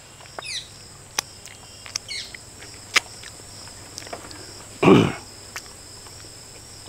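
Steady high-pitched chirring of insects, with scattered sharp little clicks and a few brief falling chirps. About five seconds in comes a short, louder burst of noise.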